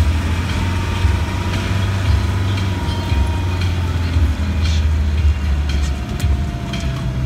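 Land Rover diesel engine droning steadily from inside the cab while driving along a rutted off-road track, with a faint whine that slowly falls in pitch and a few light knocks and rattles.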